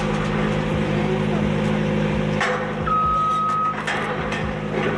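A vehicle engine running steadily, with one short, high, steady beep about three seconds in.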